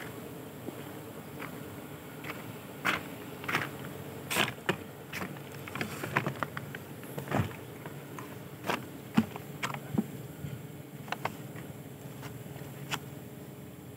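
A plastic bucket and plastic scoop being handled close by, giving a run of short knocks, clatters and clicks, the loudest near the middle, over a steady low hum.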